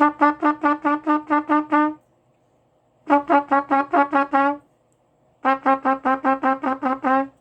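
Trumpet playing three runs of short tongued notes on one repeated pitch, about four or five notes a second, with brief pauses between runs. The player's articulation, still recovering after braces removal, starts out sounding pretty good and then starts to fall apart.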